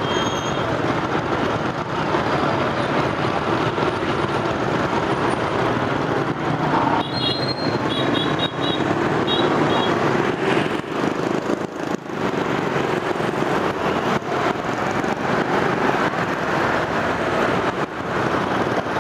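Steady road traffic noise from a busy highway, heard while travelling along it, with a few short high beeps about seven to nine seconds in.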